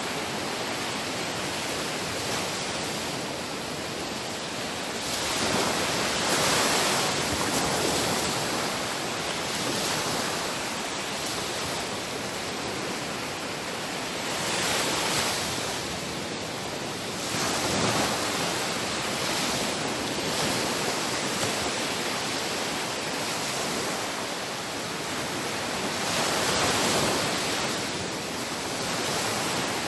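Sea waves breaking and washing on the shore in a continuous rush, swelling louder every few seconds as each wave comes in.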